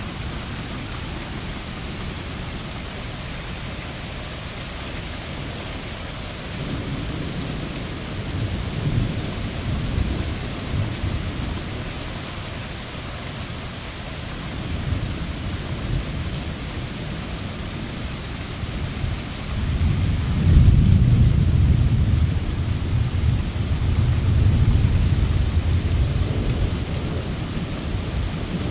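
Steady rain with thunder rumbling twice: a low rumble about a quarter of the way in, and a louder, longer one starting about two-thirds of the way through.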